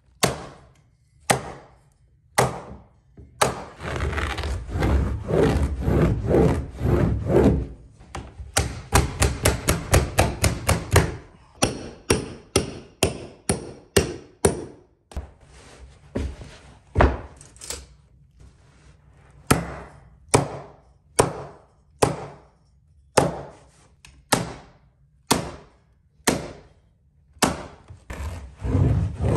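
A stapler driving staples into a carpet stair runner with sharp single shots. There are a few spaced shots, then a stretch of rubbing and scraping on the carpet, then a quick run of about a dozen shots, then steady shots about a second apart.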